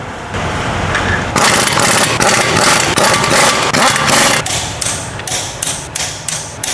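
Mechanical noise: a steady hiss for about three seconds, then a run of sharp knocks or clicks, about three a second.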